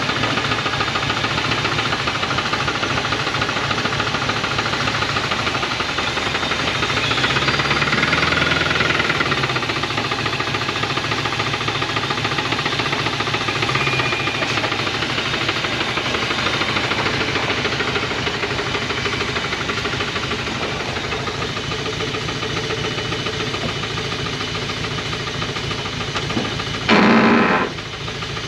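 1980 Dodge truck's 360 V8 running with a rod knock: a fast, steady knocking under the engine note, growing louder for a few seconds about seven seconds in. The knock is the sign of a worn connecting-rod bearing.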